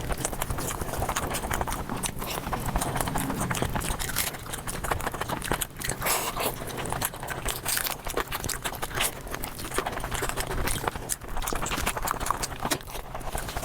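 Mukbang eating ASMR sounds sped up four times: a dense, rapid run of chewing and crunching clicks.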